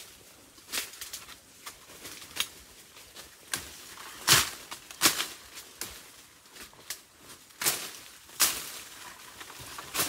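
A machete hacking at wood and brush: about eight sharp, irregular chops spaced roughly a second apart.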